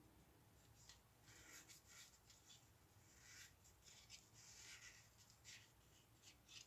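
Faint, short rustles of card paper tags being leafed through and fanned out by hand.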